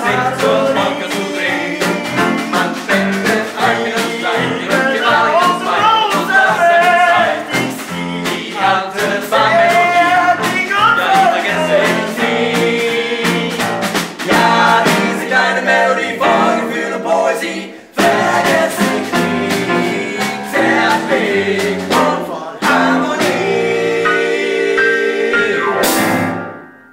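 Small old-time band of trumpet, clarinet, tenor horn and snare drum playing a lively dance tune, with voices singing along. The tune ends about a second before the close with a final hit that dies away quickly.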